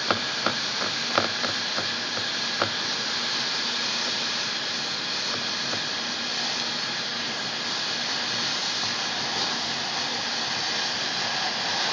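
Hot-air plastic welding gun blowing steadily as it heats LLDPE plastic. A few light knocks come in the first few seconds.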